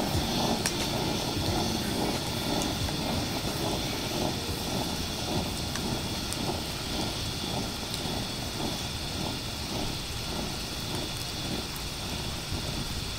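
Mantle pressure lantern burning with a steady roaring hiss that pulses about three times a second, gradually getting quieter.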